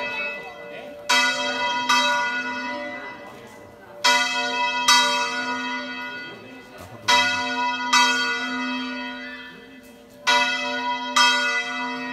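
The church bell Santa Anna swung full circle by hand (revolteig), its clapper striking in pairs about a second apart, four pairs roughly three seconds apart. Each stroke rings out and fades before the next pair.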